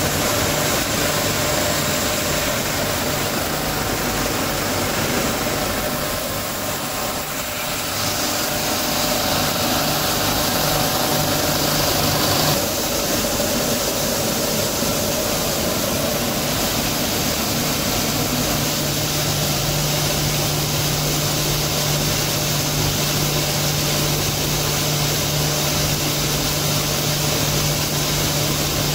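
Circuit-board crushing and sorting machinery running: a steady din of motors, fans and crushing with a constant low hum. The sound shifts abruptly about 8 and 12 seconds in.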